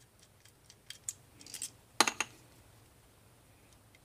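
Flathead screwdriver working the slotted tamper-proof screws on a small motorcycle carburetor's float bowl: a run of small metal clicks and scrapes, louder from about a second in, with a sharp double click about two seconds in.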